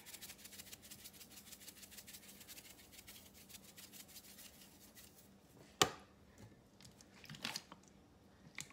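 Spice shaker shaken over a bowl of salad: a faint, fast patter of seasoning granules through the shaker holes for about five seconds, then a single sharp click about six seconds in.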